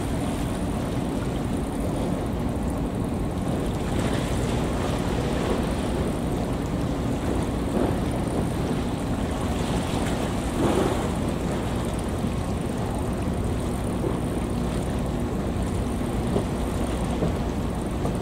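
Steady outdoor rumble and hiss of wind on the microphone and water at the waterside, with a faint steady hum underneath and a few small knocks, the loudest about 11 seconds in.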